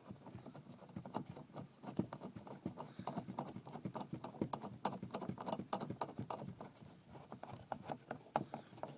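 Hand tools and metal parts clicking and knocking irregularly, several times a second, as a screwdriver is fetched and handled during the door-panel screw refit.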